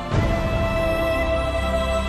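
Background film music of held, sustained chords, with a new chord coming in just after the start.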